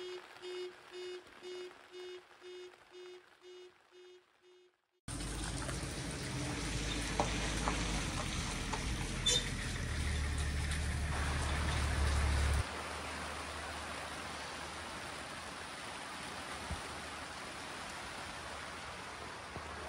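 A repeated musical note fades out over the first few seconds. Then, after a sudden cut, comes steady rain: first rain over an open wet car park, then, from about thirteen seconds in, rain falling on a tent's fabric roof heard from inside the tent.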